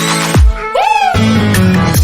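Electronic dance music with a heavy kick drum and a synth line that swoops up and back down about half a second in.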